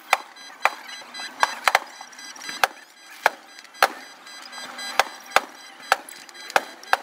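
Aerial fireworks bursting: a fast run of about a dozen sharp bangs at uneven intervals, roughly two a second, some coming in quick pairs.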